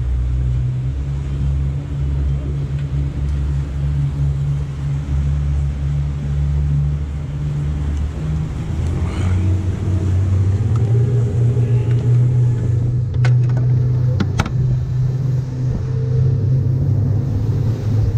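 Sport-fishing boat's engines running steadily underway, the hull pushing through chop; the engine note shifts slightly about halfway through. A few sharp knocks sound a little past two-thirds of the way in.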